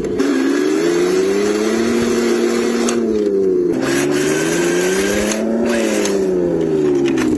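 RC drift car's motor whining up and down under the throttle, rising and falling twice, with a hiss while it speeds up.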